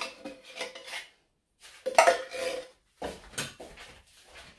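A metal spoon scraping and clinking against metal cookware in quick, irregular strokes, with a brief ringing tone about two seconds in.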